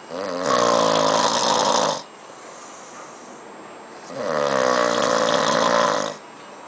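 Explosive snoring: two long, loud pitched snores of about two seconds each, the second starting about four seconds in.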